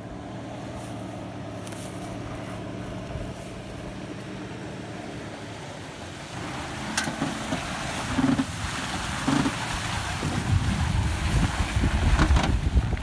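Jeep Grand Cherokee's 4.7-litre V8 engine running steadily, then louder and rougher from about six and a half seconds in as the jeep works through wet mud, with several knocks along the way.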